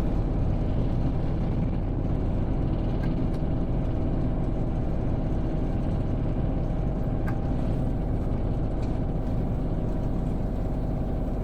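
Kubota KX033-4 mini excavator's three-cylinder diesel engine running steadily.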